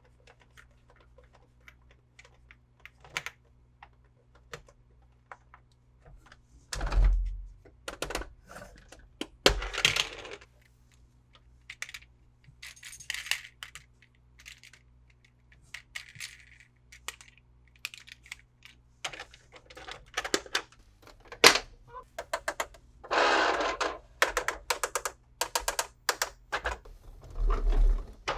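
Hands unboxing plastic toy vehicles: scattered clicks and taps of hard plastic parts, with several short bursts of packaging rustling.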